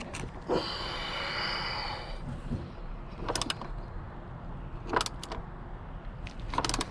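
Hand tool with a Torx 50 bit turning a seized seat-belt anchor bolt: a grinding, squealing turn lasting over a second, then three short bursts of metallic clicking. The bolt is stuck and being strained near its limit.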